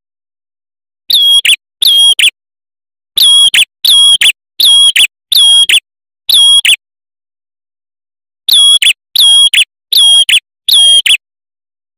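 Male ashy tailorbird singing: eleven loud, clear, high piping notes, each about half a second long on a steady pitch. They come in three runs of two, five and four, with complete silence between the runs.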